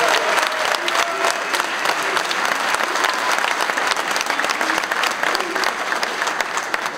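Audience applauding: a dense clatter of many hands clapping, easing off slightly near the end.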